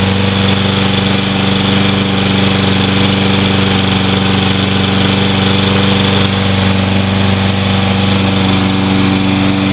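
Briggs & Stratton 190cc engine on a Toro Personal Pace walk-behind mower running steadily at a constant speed. The engine, which had sat with stale gas, has been brought back to life with carburetor cleaner and keeps running.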